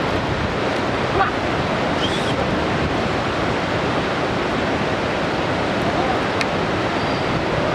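Steady outdoor rushing noise with a few faint short chirps.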